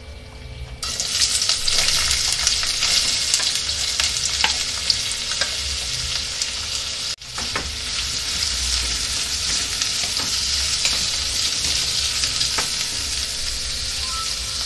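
Sliced onions sizzling in hot oil in a hammered steel kadhai, the frying hiss starting about a second in as they hit the pan, with a wooden spatula stirring and scraping them in small clicks. The sizzle breaks off for an instant about halfway, then carries on.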